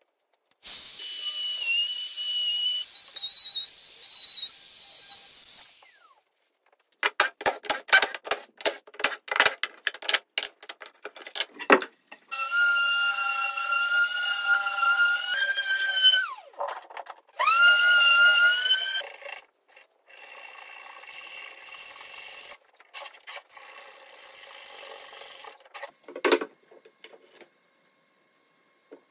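A small router whines steadily for a few seconds. Then a cordless impact driver hammers in rapid strikes and whirs, spinning up twice, as screws are worked out of a wooden frame jig. A quieter steady rubbing follows as the oak end-grain board is sanded by hand, with one knock near the end.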